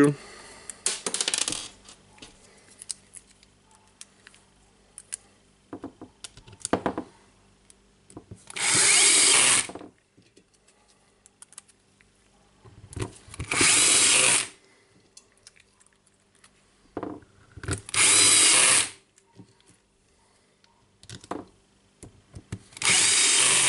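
Cordless drill-driver running in four short spells of about a second each, a few seconds apart, driving in the four screws that hold the front cap on an impact driver's housing. Light clicks and handling noises come between the spells.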